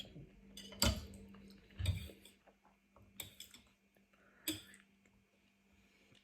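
Eating utensils clicking and clacking against a bowl of noodles and rice cakes, four or so sharp knocks a second or so apart, over a steady low hum.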